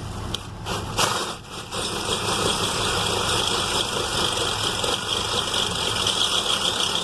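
Cordless drill turning a 1/2-inch twist bit with rounded cutting edges slowly into stainless steel wetted with water. The drill runs steadily from about two seconds in, after a short dip.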